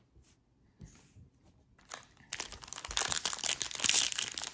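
A few faint light clicks, then from about halfway in a foil trading-card pack wrapper being torn open and crinkled, a continuous crackly rustle.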